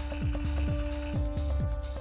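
Background electronic dance music: a steady, fast kick-drum beat under held synth notes.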